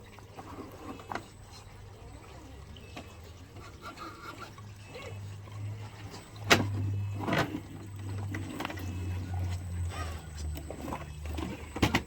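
Radio-controlled scale rock crawlers driving over a rock course: a low motor drone that swells from about halfway, with sharp knocks and clatter of the trucks against rocks, the loudest about six and a half seconds in.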